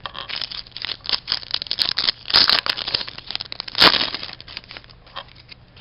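Shiny wrapper of a 2007-08 Upper Deck MVP hockey card pack crinkled and torn open by hand: a dense run of crackling rustles, loudest about two and a half and four seconds in.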